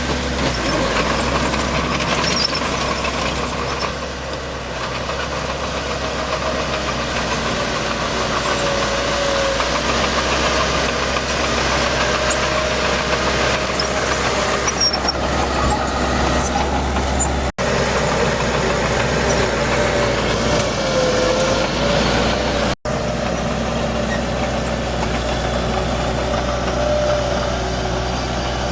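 Heavy diesel earthmoving machinery running steadily, a low engine drone with a wavering whine above it, broken by two brief dropouts.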